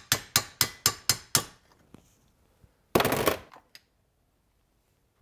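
Hammer striking a steel pin punch in quick, even blows, about four a second, driving the centre pin out of a Tecumseh snowblower recoil starter clamped in a vise. The hammering stops after about a second and a half, and a short metallic clatter follows about three seconds in.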